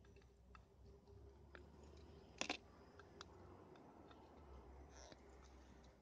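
Side cutters snipping excess lead off freshly cast fishing weights: faint scattered clicks, with one sharper snip about two and a half seconds in.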